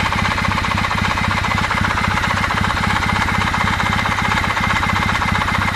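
Kawasaki W650 air-cooled parallel-twin engine idling steadily, its running carrying an even, rapid knocking clatter. The owner takes this knock for the camshaft drive gear, which starts knocking once the engine is warm.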